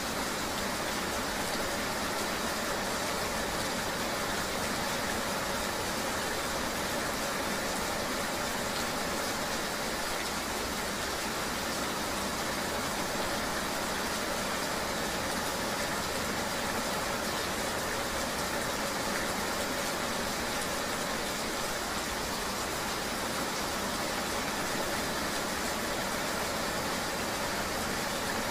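Riding in steady rain: an even rain hiss with a vehicle's engine running steadily underneath as a faint hum, unchanging throughout.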